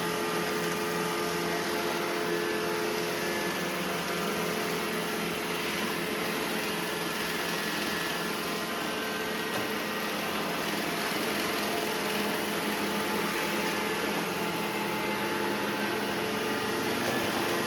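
Roomba j7 and Deebot 920 robot vacuums running together, a steady whir with several steady humming tones from their suction and brush motors.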